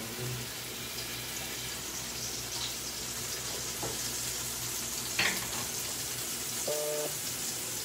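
Food frying in a pan on the stove, a steady sizzling hiss, with a single knock about five seconds in.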